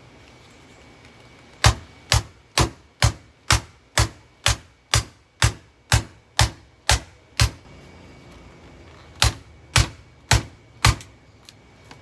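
A hammer striking a Kenmore canister vacuum cleaner over and over to break a piece off it: a run of thirteen sharp blows at about two a second, a short pause, then four more and a faint last tap.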